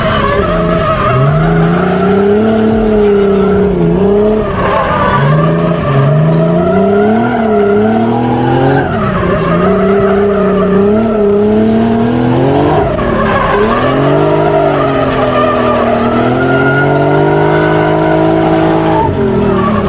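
The 1978 Puma GTE drift car's engine revs hard, rising and dropping again and again as the car slides through the corners, with tyres squealing and skidding on the asphalt.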